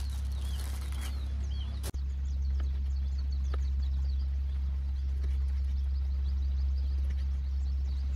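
A plastic bag crinkling, then, after a cut, a knife tapping faintly on a wooden cutting board as turban-snail meat is sliced, with birds chirping throughout. A steady low hum runs under it all and is the loudest sound.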